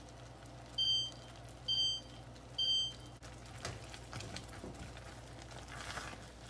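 An electronic timer beeps three times, about a second apart, as the four-minute boiling timer for the fudge is set. After that, soft scraping sounds come from a spatula stirring the boiling fudge mixture in a metal saucepan.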